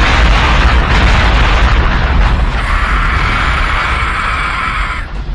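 Loud, sustained explosion-like rumble with a heavy bass, a brighter hissing layer coming in about two and a half seconds in and dropping out near the end.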